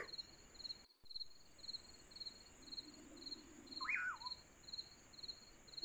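Faint added nature soundtrack: a high chirp pulsing about three times a second throughout, with one short bird whistle that rises and falls about four seconds in.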